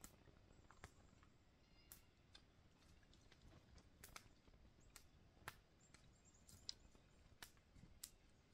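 Near silence with faint, sharp clicks and ticks at irregular intervals, about a dozen, and faint high bird chirps now and then.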